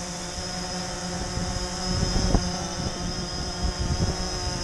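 DJI Phantom 3 Standard quadcopter hovering on its stock DJI propellers: the four brushless motors and props give a steady hum of several pitches with a higher whine above it.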